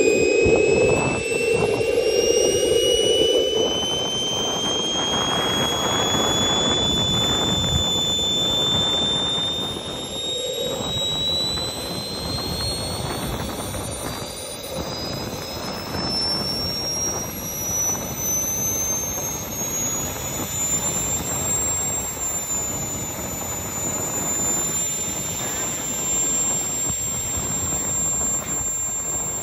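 Small jet turbine engine on a go-kart running with a rushing exhaust noise and a thin high whine that climbs steadily in pitch for about twenty seconds as the turbine spools up, then holds steady.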